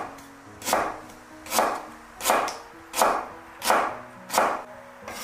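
Chinese cleaver slicing fresh ginger on a wooden cutting board: six even cuts, about one every 0.7 s, each blade strike knocking on the board.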